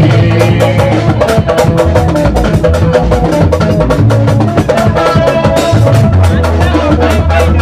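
Live band music: a busy, steady percussion beat with clicking wood-block-like strokes over a strong bass line, with electric guitar.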